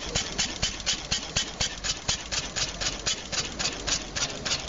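Benz Patent-Motorwagen's single-cylinder four-stroke engine running at idle while the car stands still, its horizontal flywheel spinning. It keeps a slow, even beat of about four sharp strokes a second.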